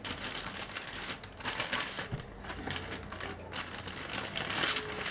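Clear plastic bag crinkling, with the papers inside rustling, as hands pull the instruction leaflets out of the box; an irregular crackle throughout.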